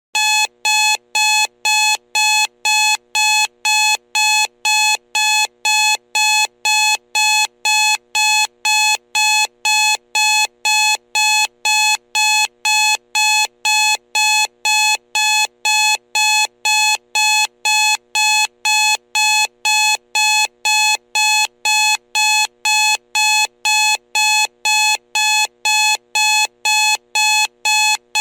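Digital alarm clock beeping: short identical electronic beeps of a single pitch, about two a second, repeating evenly without a break.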